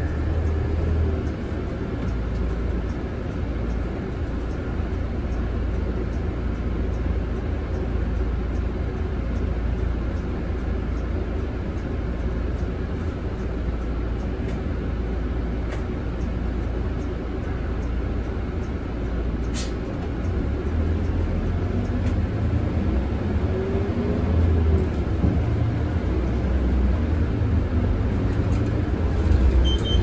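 Route bus running, heard from inside: a steady engine drone with road noise. Near the end the engine note rises and falls a few times as the bus changes speed. A single sharp click about twenty seconds in.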